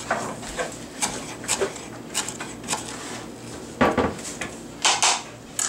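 Knife chopping fresh parsley on a cutting board: irregular sharp knocks, with one heavier thud about four seconds in.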